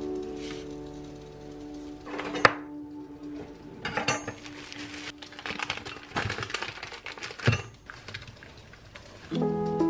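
Kitchen handling sounds on a wooden countertop: a sharp knock about two and a half seconds in, then clicks, scraping and rustling as utensils and food packaging are handled, with a thump near the end. A held note of background music lingers underneath and the music picks up again near the end.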